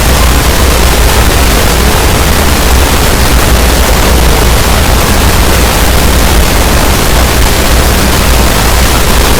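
Very loud, steady static-like noise across all pitches, with a heavy low rumble underneath and no change.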